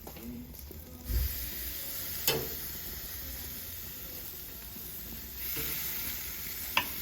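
Raw chicken sizzling on a hot grill grate as pieces are laid on, the sizzle growing louder about a second in. Two sharp clinks break through it.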